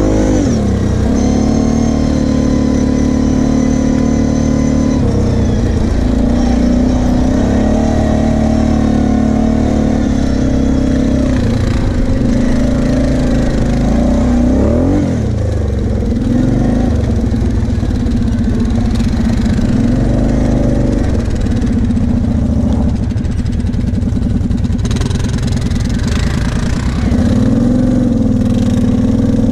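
Kawasaki KFX 700 V-Force quad's V-twin engine running under way at fairly even revs. The revs rise and fall briefly a few times as the throttle is opened and eased.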